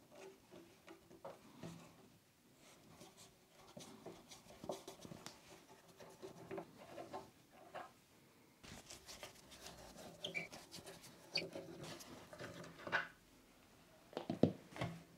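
A hand screwdriver turning old wood screws out of a wooden chair frame: faint creaking and scraping of the screws turning in the wood, with a squeak now and then and light clicks.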